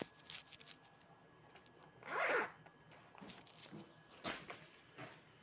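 Handling noise as things are moved about by hand: one short rasping, zip-like sweep about two seconds in, then a few light knocks.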